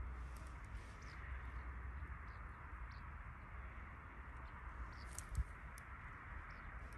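Outdoor ambience: a steady faint hiss over a low rumble, with scattered short, high chirps of small birds. A brief soft thump comes about five seconds in.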